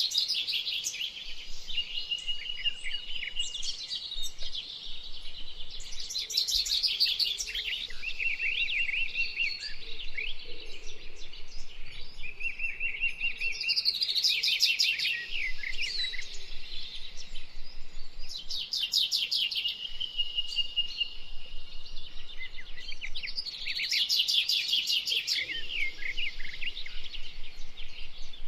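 Tropical forest birds singing. Bursts of rapid chirps come every five to six seconds, with level whistled trills between them.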